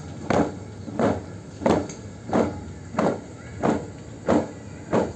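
Marching troop's boots striking the ground in unison, in even steps about every two-thirds of a second: eight stamps.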